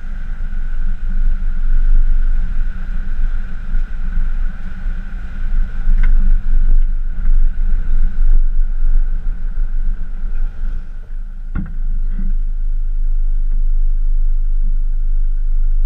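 Pickup truck driving on a gravel road towing an off-road camper trailer: a loud, steady rumble with a constant high tone over it, and a few short knocks about six, eleven and twelve seconds in.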